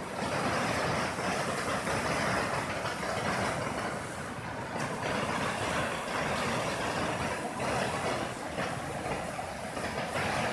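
Fast-flowing, muddy floodwater of a swollen river rushing past the bank as a steady, continuous noise, with an irregular low rumble beneath it.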